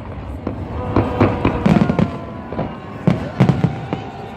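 Fireworks salute: a run of shell bursts, about half a dozen sharp bangs at uneven intervals, with music playing steadily underneath.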